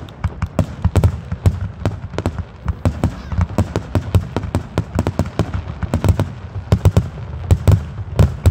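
Fireworks going off in quick succession: an uneven run of sharp bangs and pops, several a second, with deep thumps among them.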